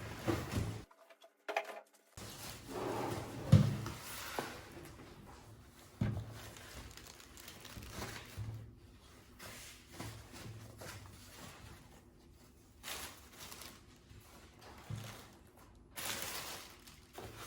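Cardboard box and packing of a computer case being opened and handled: scattered knocks and thumps, the loudest about three and a half seconds in, with rustling in between. The sound drops out completely for about a second near the start.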